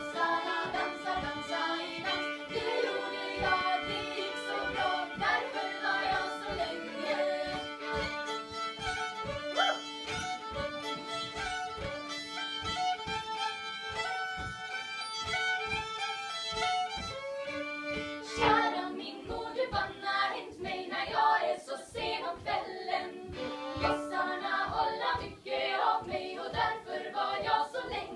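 Live acoustic fiddle music with women singing along, over a steady low beat. The music changes character about two-thirds of the way through, with the sustained notes giving way to shorter, choppier ones.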